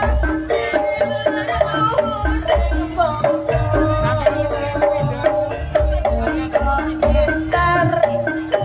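Javanese jaranan accompaniment music: kendang hand-drum beats under a fast, repeating melody of short pitched notes.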